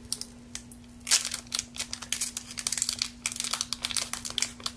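Crinkling and crackling of a trading-card booster pack wrapper being handled: a quick run of small, sharp crackles.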